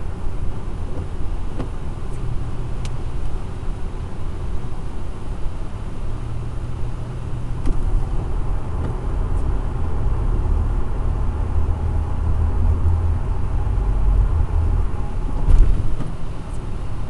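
Road noise inside a moving car's cabin: a steady low rumble of engine and tyres on wet pavement. Near the end there is a brief louder swell as the windshield wiper sweeps.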